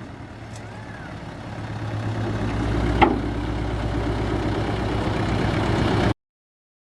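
Heavy vehicle engine running, growing louder over the first couple of seconds and then holding steady, with a single sharp knock about three seconds in. The sound cuts off suddenly near the end.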